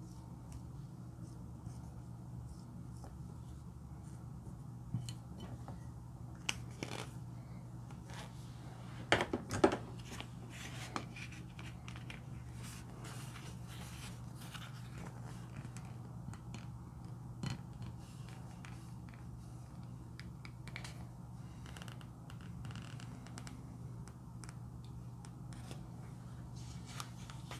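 Lipstick tips dragged and dabbed across foamy slime: scattered soft clicks, crackles and scratches over a steady low hum, with a short cluster of sharper clicks about a third of the way in.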